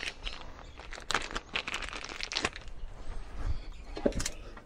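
Thin plastic bag crinkling and rustling around a new speedometer sender as it is handled, dense for about the first two and a half seconds. A few light knocks follow near the end.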